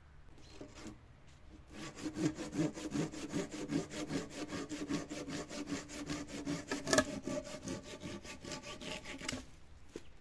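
Hand saw cutting through a wooden log with quick, even back-and-forth strokes, the log ringing faintly under the blade. The sawing starts about two seconds in and stops shortly before the end, with one sharper knock about seven seconds in.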